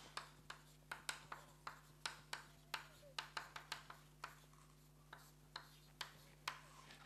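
Chalk writing on a blackboard: a faint string of short, sharp taps and scratches, about three a second, as symbols are written, over a steady low hum.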